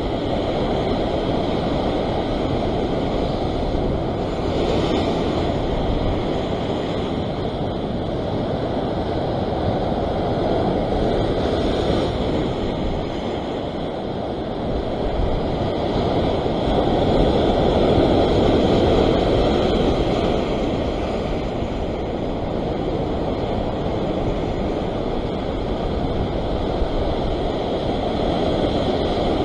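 Surf surging and washing over a rock ledge in a continuous rush, with wind buffeting the microphone. The wash swells loudest about two-thirds of the way through.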